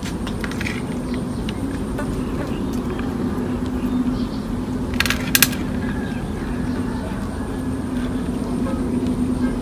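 Steady low mechanical hum with a held tone throughout, with a quick cluster of sharp clicks about five seconds in.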